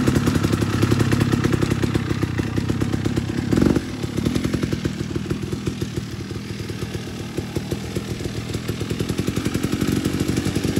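Enduro dirt bike engine running at low to moderate revs with small throttle changes as the bike is ridden slowly, with a brief louder moment about three and a half seconds in.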